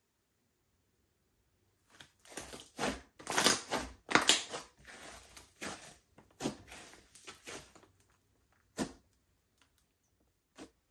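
Slime being squished and kneaded by hand: a quick run of sticky squishes starting about two seconds in and dying down around eight seconds, then two single squishes.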